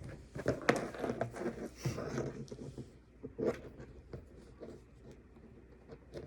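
Plastic action figures being handled: irregular clicks and rustling, busiest in the first three seconds, with a few sharper clicks, then quieter.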